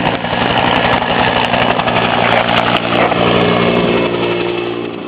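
A helicopter running: dense rotor and engine noise with a steady hum, easing off slightly near the end.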